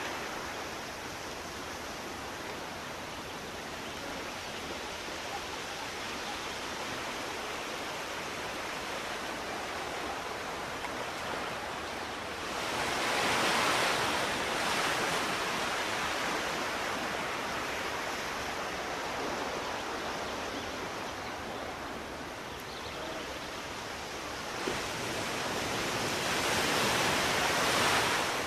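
Sea waves washing in steadily, with two bigger waves surging louder, one about halfway through and one near the end.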